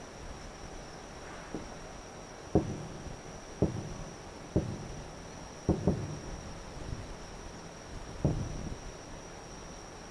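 Distant aerial fireworks shells bursting: a series of about seven dull booms, each trailing off in a rumbling echo, the loudest about two and a half seconds in and two in quick succession near the middle. A steady high cricket trill runs underneath.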